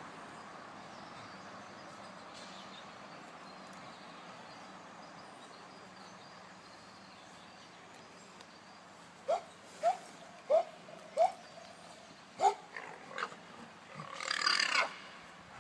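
Alpaca calls: after a long stretch of faint background noise, six short, high, bending calls come about a second apart, followed near the end by one longer, harsh, breathy cry.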